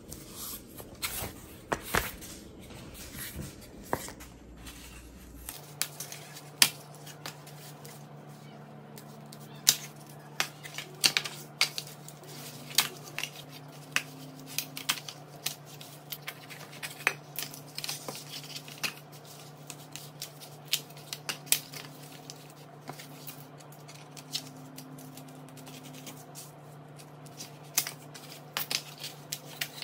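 Thick cardboard handled by hand: cut-out shapes pressed and popped out of a cardboard sheet, giving irregular sharp snaps, crackles and scrapes. A steady low hum runs underneath from about five seconds in.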